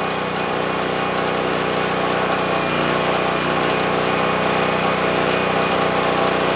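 Generac GP3250 portable generator's single-cylinder engine running steadily at an even speed, still warming up on partial choke.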